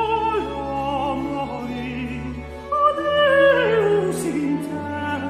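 Countertenor voice singing a Baroque opera aria over instrumental accompaniment with sustained low notes. About three seconds in, the voice runs down a long quick scale of notes.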